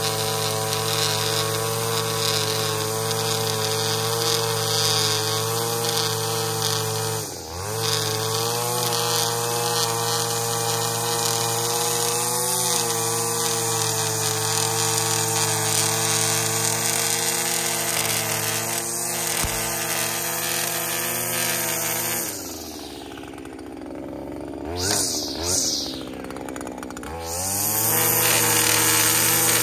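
String trimmer running at full speed, cutting long grass. Its pitch dips and recovers about seven seconds in. Near the end it is eased down for several seconds with two quick throttle blips, then speeds back up.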